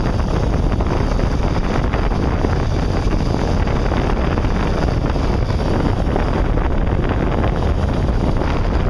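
Wind buffeting the microphone over the steady rumble of a sport-fishing boat under way and the rush of its churning wake, with no break or change.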